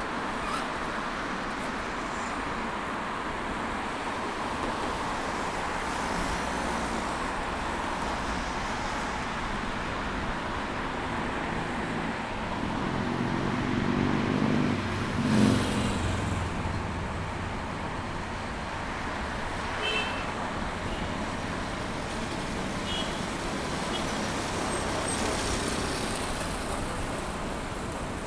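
Street traffic noise heard from a moving bicycle, with a steady hum of passing cars. About halfway through, a motor vehicle passes close: its engine grows louder, peaks and fades away.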